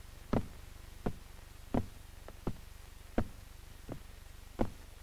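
Repeated heavy thuds from men working out on the floor above, heard through the ceiling, about one every three-quarters of a second, a few followed by a lighter knock. A steady low hum runs underneath.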